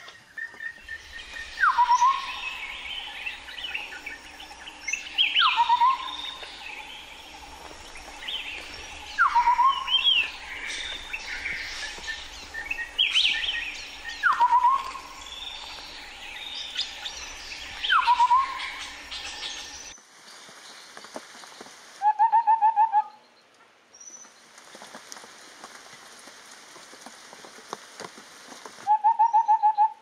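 White-browed scimitar babbler calling: loud calls about every four seconds, each a quick drop in pitch ending in a short trill, with other birds chattering behind. Partway through the sound cuts to a second recording, and two bursts of rapid hooting notes at one pitch follow.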